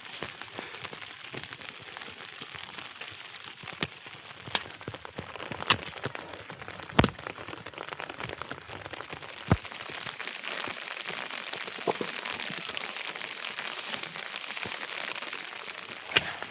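Steady rain falling, an even hiss, with scattered sharp taps and a few louder single hits through the middle.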